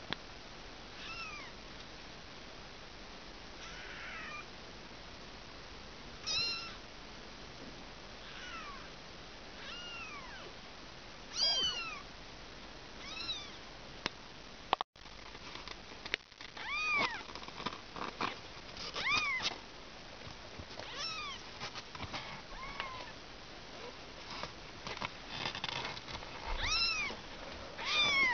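Young kitten mewing over and over: short high calls that rise and fall in pitch, a second or two apart, coming more often in the second half. Scratching and scrabbling on cardboard join in during the second half as it climbs at the edge of its box.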